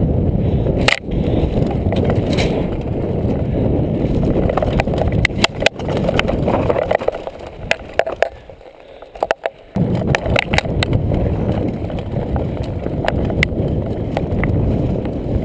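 Mountain bike riding over rough singletrack: a constant rushing rumble of tyres on dirt and stones, with frequent sharp clicks and rattles of the bike over bumps. It drops away for about two seconds past the middle, then picks up again.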